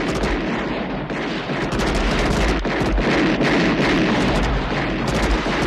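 Film action-scene soundtrack: a dense mix of many rapid gunshots and impacts over a continuous heavy rumble.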